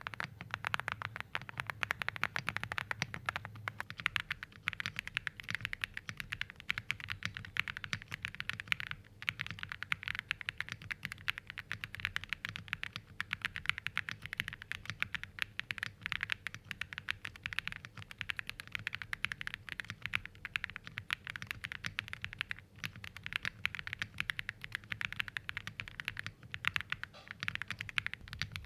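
Continuous fast typing on a Meletrix Zoom98 mechanical keyboard fitted with Diamond Avalon switches and Cloud MOA keycaps: a steady stream of key clacks with a couple of brief pauses.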